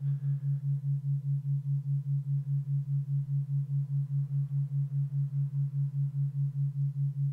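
Brainwave-entrainment tone: a single low, pure tone that pulses in loudness about five times a second, meant to lead the mind into a deeply relaxed meditative state.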